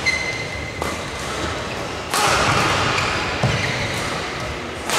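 Badminton doubles rally in a large gym: rackets strike the shuttlecock with several sharp smacks spread through the rally, with a brief squeak of shoes on the court in the first second. Steady hall chatter, which gets louder about two seconds in.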